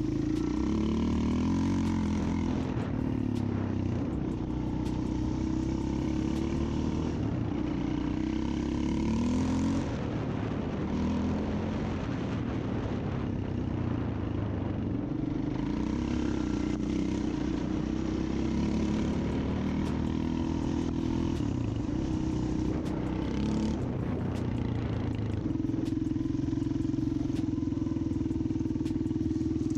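Small off-road engine running, its revs rising and falling again and again.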